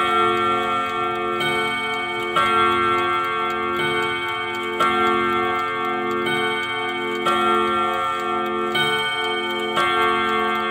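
ODO chiming clock striking the hour on its rod gongs. The hammers strike about every second and a quarter, louder and softer strikes taking turns, and each strike rings on under the next.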